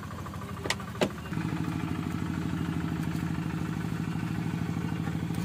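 A small engine running steadily with a rapid, even beat, getting louder and a little higher about a second in. Two sharp clicks come just before that.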